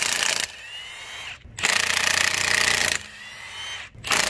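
Impact wrench loosening the wheel's lug bolts in three bursts: a short one at the start, a longer one of over a second in the middle, and a short one at the end, with a faint whine between bursts.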